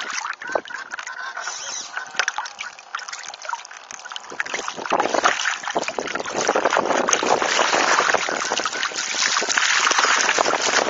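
Water rushing and splashing against the hull and foils of a Mini 40 radio-controlled hydrofoil trimaran under sail, picked up close on board; it grows louder about five seconds in.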